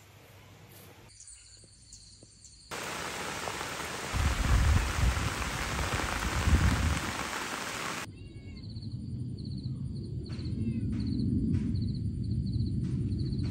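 Rain falling in a steady hiss, with low rumbling gusts through the middle. After about eight seconds it gives way to a high chirp repeating in quick regular pulses over a low rumble, with a few clicks.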